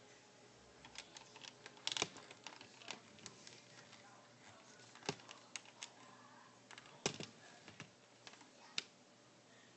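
A few irregular, spaced-out clicks of computer keyboard keys being pressed, the loudest about two seconds and seven seconds in.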